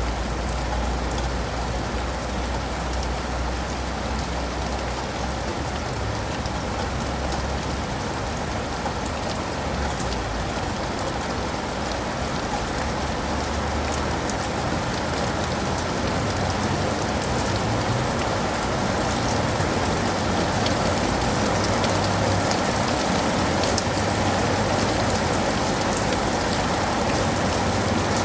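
Steady rain falling on leaves and pavement, a dense even patter with a low rumble underneath.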